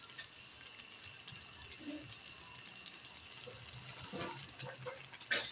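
Metal ladle stirring a pan of coconut-milk fish stew, with faint liquid sloshing and small clinks. Near the end the ladle strikes the metal pan sharply.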